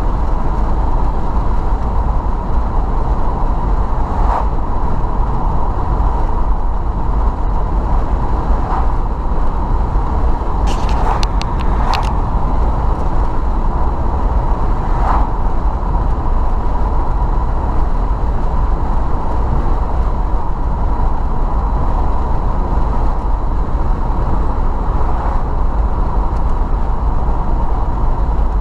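Car driving: steady road and engine noise heard from inside the cabin, with a few small clicks now and then.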